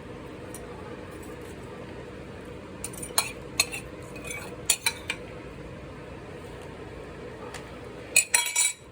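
Kitchen utensils clinking and knocking against a bowl while the papaya salad is worked and mixed: scattered clinks in the middle and a quick run of them near the end, over a steady low hum.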